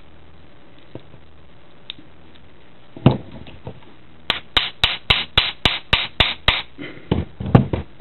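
A Shimano bicycle trigger shifter being worked by hand: a sharp knock, then a fast, even run of about ten sharp clicks, about four a second, and a few more clicks near the end.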